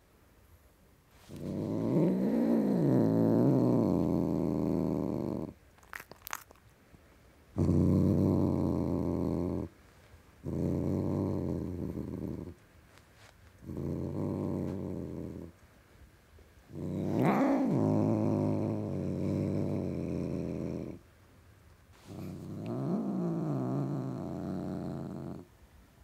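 Tom cat growling hard: six drawn-out growls of two to four seconds each with short pauses between them, some rising and falling in pitch. A brief click comes between the first and second growl.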